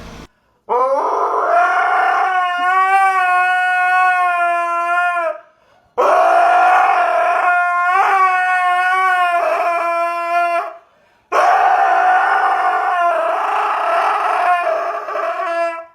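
Dog howling: three long, drawn-out howls, each sliding up at the start and then held on a steady, slightly wavering pitch, with short silent breaks between them.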